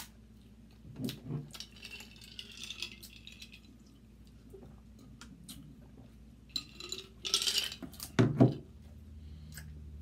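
King crab leg shell being cracked and pulled apart by hand, with scattered clicks and crackling as the shell breaks. A couple of dull thumps come near the end and are the loudest sounds.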